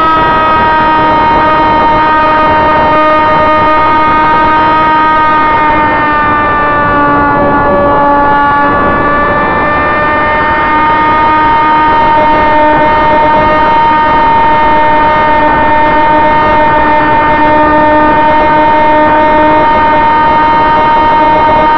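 Electric motor and propeller of a Sonicmodell AR Wing RC flying wing whining steadily in flight, heard from the onboard camera with a rush of airflow. The pitch sags for a few seconds about six seconds in, then climbs back.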